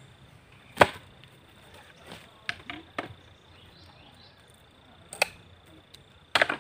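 A hand tool striking bamboo in separate sharp knocks: a hard one about a second in, a few lighter ones around the middle, and a quick burst of blows near the end.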